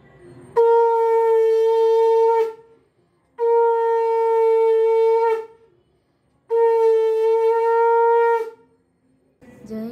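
Conch shell (shankha) blown three times, each blast a long steady horn-like note of about two seconds, with a short pause between blasts and a slight dip in pitch as each one ends.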